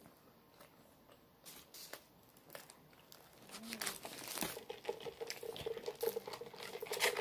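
Paper or foil food wrapper crinkling and tearing as it is handled, a few scattered crackles at first, then denser from about four seconds in, with a steady hum underneath from about five seconds in.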